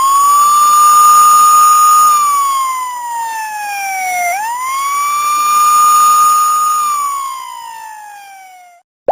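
Siren wailing in two slow cycles: each time the pitch sweeps up quickly, holds high for a moment, then falls slowly. It stops near the end.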